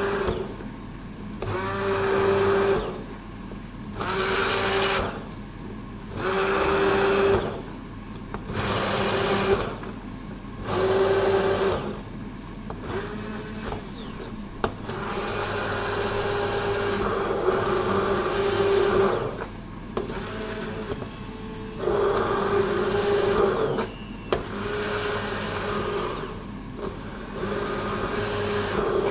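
Braun MultiQuick 9 immersion blender puréeing soup in a steel saucepan. It runs in pulses of about a second, roughly every two seconds, then in longer runs of a few seconds, the motor holding a steady whine while it runs.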